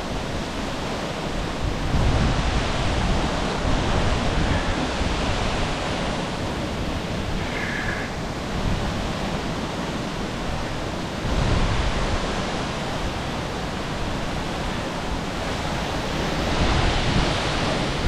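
Steady rush of a waterfall about 60 metres tall plunging into its pool, heard from the beach in front of it. It runs on unbroken, swelling slightly at times.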